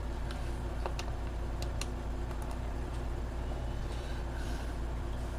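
A few faint light clicks of a small screwdriver working the tiny screws on a laptop's plastic underside, over a steady low hum.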